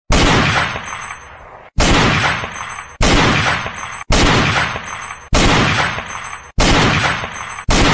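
Loud blast sound effect, like gunshots or explosions, repeated seven times about a second apart; each hits suddenly and dies away, some cut off short.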